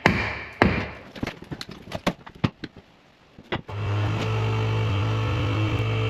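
A run of knocks and clatters, then about three and a half seconds in an electric lift motor starts and runs with a steady hum.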